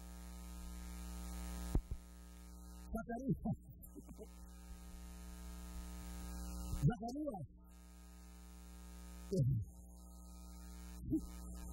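Steady electrical mains hum with a buzz of many overtones, broken a few times by short vocal sounds.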